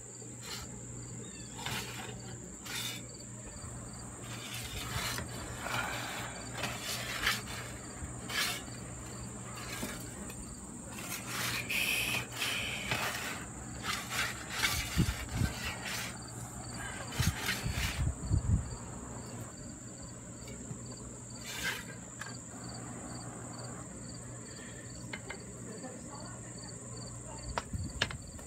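Insects outdoors making a steady high-pitched drone with a faint, evenly pulsing chirp, over scattered sharp clicks and knocks and a few low thumps about two thirds of the way through.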